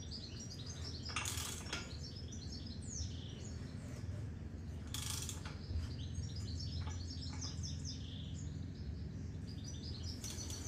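Small birds chirping and twittering in the background, with three short bursts of mechanical clicking about a second in, near the middle and near the end.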